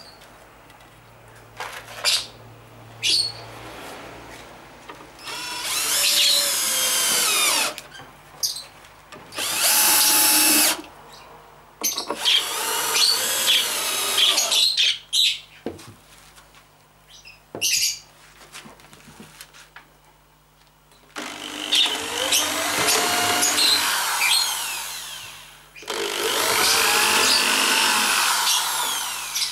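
Electric drills running in repeated bursts of one to four seconds, drilling holes and driving screws into a pine shelf board. The motor pitch rises and sags with each run. There are shorter blips between the runs and a couple of sharp knocks a few seconds in.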